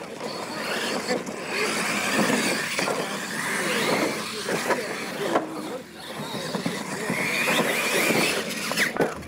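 Radio-controlled Losi monster trucks racing, their electric motors giving a high whine that rises and falls in pitch as they speed up and ease off, with a couple of sharp knocks.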